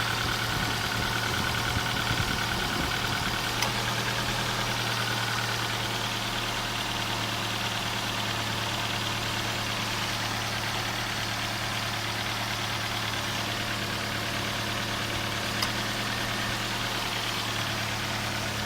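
Ford Focus Mk1 1.6 engine idling steadily. A fast, even ticking is heard over the idle for the first few seconds, with two single sharp clicks, one about three and a half seconds in and one near the end: the click noise that comes after starting the engine.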